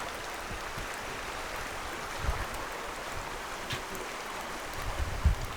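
Steady rushing of a rain-swollen river, with a few low thumps about two seconds in and near the end.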